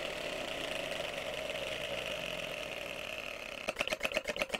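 3D-printed single-cylinder model engine with VTEC running on compressed air, its VTEC disengaged, with a fairly steady mechanical running sound. About three-quarters of the way through, the running breaks into separate, evenly spaced chuffs about six or seven a second as the engine slows.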